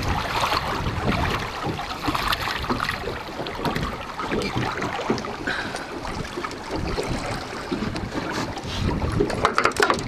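Wind buffeting the microphone over moving water, with splashing from a hooked fish thrashing at the surface on the line. A cluster of sharper splashes near the end as the fish is lifted from the water.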